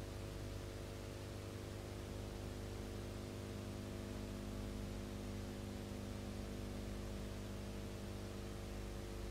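Steady electrical hum with several fixed low tones under an even hiss, unchanging throughout: the empty soundtrack of a silent film transfer, with no recorded scene sound.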